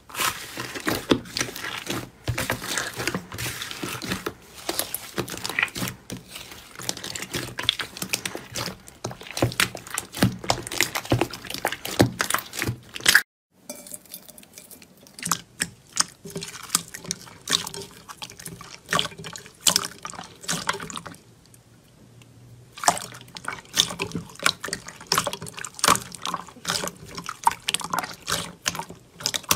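Hands squishing and kneading slime, giving dense wet crackling and squelching clicks. There is a short break about halfway through, and after it a glossy clear slime is pressed and stirred in a glass bowl with wet squelches and pops.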